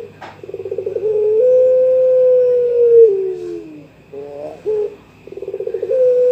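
Young puter pelung (Barbary dove) cooing a challenge call: a quick stuttering rattle, then one long drawn-out coo that drops in pitch at the end. A few short notes follow, and the call starts again near the end.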